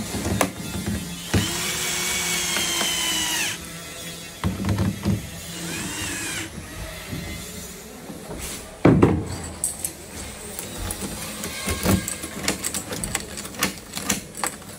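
A cordless drill drives screws into a door lockset's faceplate: one steady run of about two seconds, then a short second burst. A loud knock follows, then a string of quick metallic clicks as the lever handle and key are worked and the mortise lock's bolts throw.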